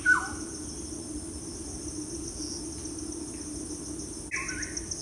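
A steady, fast-pulsing cricket-like insect trill, with two short downward-sliding bird calls: a loud one just after the start and another about four seconds in.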